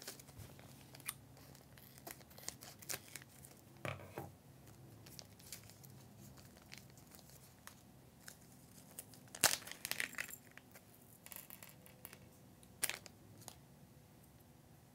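Plastic packaging bag crinkling and rustling as it is opened and a small circuit board is taken out. Faint throughout, with a few louder crackles about four seconds in, around nine to ten seconds and near thirteen seconds.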